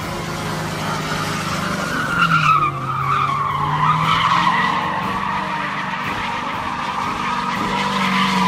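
A car's tyres squealing in a long sideways skid over a running engine. The engine note dips a couple of seconds in, then climbs and holds while the squeal wavers on.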